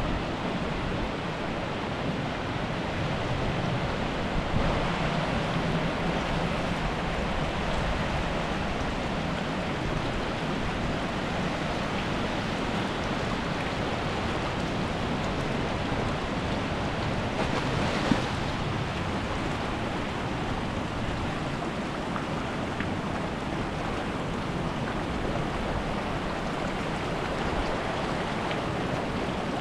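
Caspian Sea waves washing onto the shore in a steady surf noise, swelling a little about five seconds in and again with a short sharp slap about eighteen seconds in.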